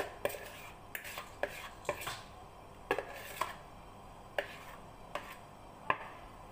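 A spoon knocking and scraping inside a plastic mixing bowl as cake batter is scraped out into a baking pan. About a dozen short, irregular clicks, coming more sparsely in the second half.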